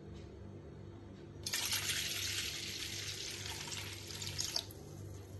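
Water poured in a thin stream into a stainless steel bowl of ground mustard and spice mix, a steady splashing that starts about one and a half seconds in and stops sharply about three seconds later.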